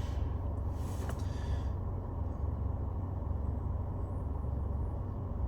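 A steady low rumble of background noise, with a short soft hiss in the first second and a half.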